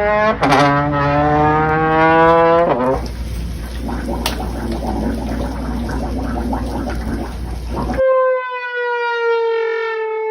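A string of dubbed-in comic sound effects. A rising, siren-like glide runs until about three seconds in, then a rough noisy stretch follows. At about eight seconds it switches abruptly to a long, slowly falling horn-like note.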